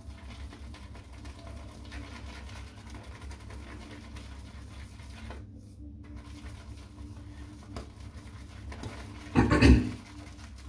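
Shaving brush being worked around a shaving bowl to whip up a soft soap, a steady wet, scratchy swishing that pauses briefly about halfway through. The lather is still slow to build. There is a short, much louder burst about nine and a half seconds in.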